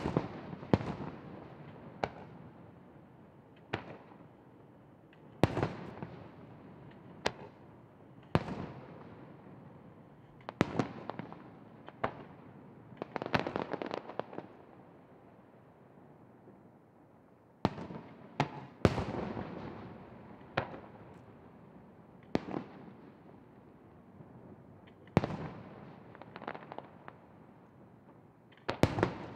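Aerial firework shells bursting, more than a dozen sharp booms at uneven intervals, each trailing a long echoing tail. About halfway through, a quick run of rapid pops.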